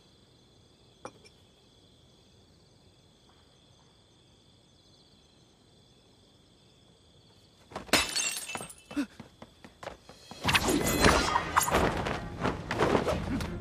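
Crickets chirping faintly. About eight seconds in comes a sudden crash of something breaking. From about ten seconds on, loud fight sound effects (thuds and clatter) play over dramatic music.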